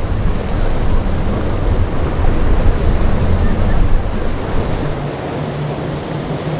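Wind buffeting the microphone over surf and choppy water, as a pontoon boat's Suzuki outboard motor runs through the inlet chop. About five seconds in, the wind rumble eases and a steady low engine hum comes through.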